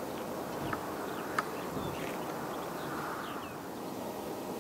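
Steady outdoor background noise with faint, short bird chirps. Two sharp clicks come about three-quarters of a second and a second and a half in.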